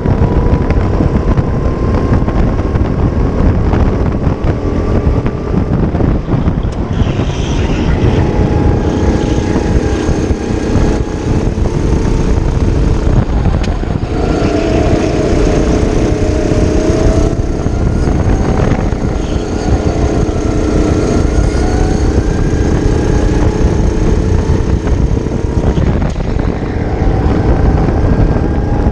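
Racing kart's Briggs & Stratton LO206 single-cylinder four-stroke engine running hard. Its pitch climbs slowly along the straights and drops back into the corners, over wind rush on the microphone. A second engine note joins for a few seconds past the middle, from another kart close by.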